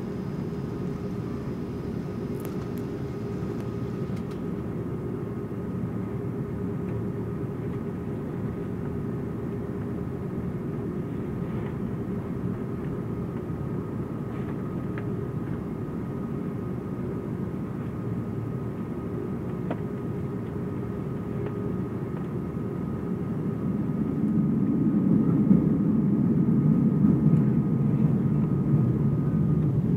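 Airbus A330-300 jet engines heard from inside the cabin: a steady low rumble with a faint, thin whine. About 24 seconds in the rumble swells and stays louder as the engines are brought up toward takeoff power.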